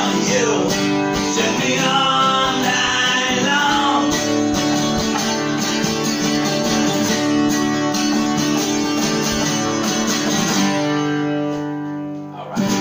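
Two acoustic guitars, one nylon-string and one steel-string, strummed together in driving rock chords. About two seconds before the end the playing dies away and the chords fade out, followed by a sharp knock.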